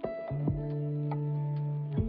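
Instrumental background music: long held notes over a light ticking beat.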